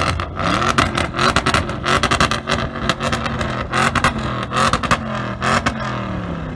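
Audi RS 6 Avant's twin-turbo 4.0 V8 running close-up at the tailpipes, its pitch wavering slightly and dropping near the end. Many rapid, irregular sharp crackles sound over the engine throughout.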